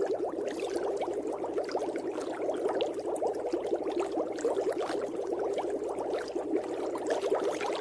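Steady underwater bubbling: a dense, unbroken stream of small bubbles popping.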